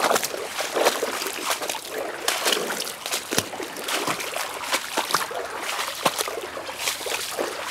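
Shallow creek water splashing and trickling, with many irregular sharp clicks and knocks.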